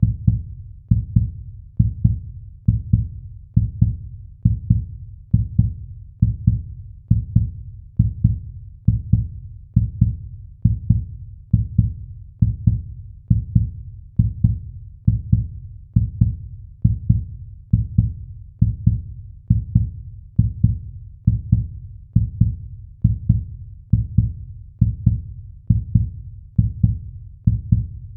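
Heartbeat sound effect: low, dull double thumps (lub-dub) repeating evenly, a little faster than once a second.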